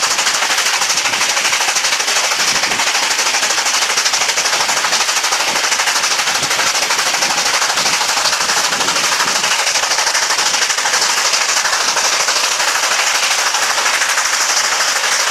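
SY class 2-8-2 steam locomotive running along the line, heard up close on the moving engine: a loud, steady, rapid rattling that does not let up.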